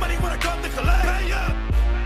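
Hip hop music with a heavy bass and a steady beat.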